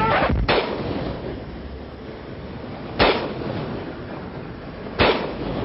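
Three loud, sharp bangs, each with a short ringing tail, about two to two and a half seconds apart, over the steady noise of a moving vehicle.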